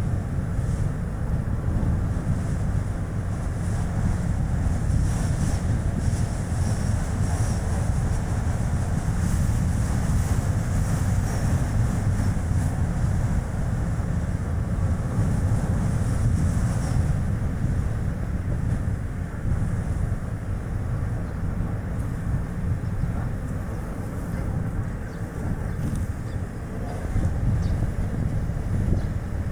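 Strong wind buffeting the microphone over the steady tyre and road noise of a moving Chevrolet Spark, a low rumbling roar that hardly changes.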